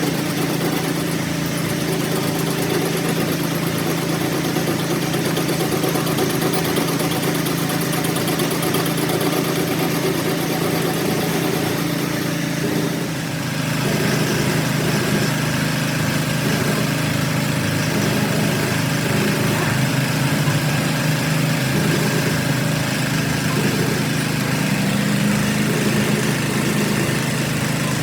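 A motor or engine running steadily with a constant hum, dipping briefly about thirteen seconds in.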